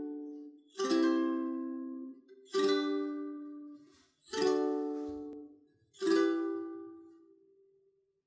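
Solo ukulele background music: four slow chords about two seconds apart, each left to ring out and fade, the last dying away near the end.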